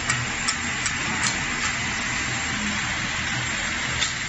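Multi-spindle fishing line winding machine running: a steady mechanical hiss with a faint high tone and a low hum. Light clicks come about two or three times a second in the first second and a half, and once more near the end.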